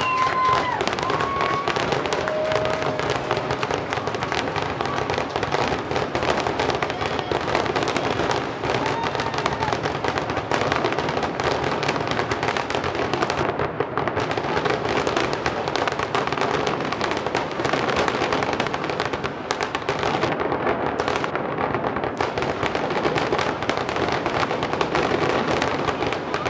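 Fireworks going off in a dense, continuous barrage of crackles and bangs with no pause.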